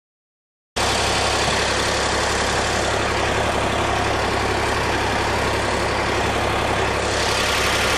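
Wind buffeting a handheld camera's microphone: a steady, loud rumble and hiss that cuts in abruptly just under a second in, after silence.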